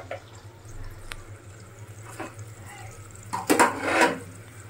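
Kitchen handling sounds: a few light clicks of utensils, then a short splashing, liquid-like rush of noise about three and a half seconds in.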